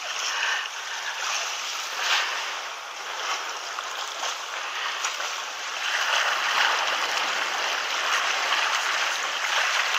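Sea surf washing over shoreline rocks: a steady hiss of water that swells and eases, a little louder from about six seconds in.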